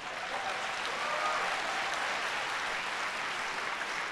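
Audience applauding: a steady wash of many hands clapping that swells up at the start and holds.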